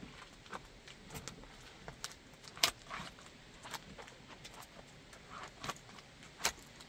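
Wedge sandal soles crushing and grinding cucumber pieces into gritty pavement: irregular wet crunches and sharp crackles, the loudest about two and a half seconds in and again near the end.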